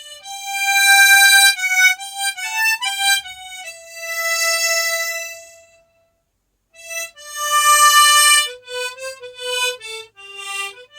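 Harmonica in G playing a slow melody one note at a time, long notes swelling and then dying away at the ends of phrases.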